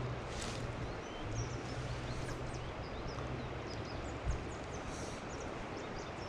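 Outdoor ambience: birds chirping over a steady rushing background noise, with a single low thump about four seconds in.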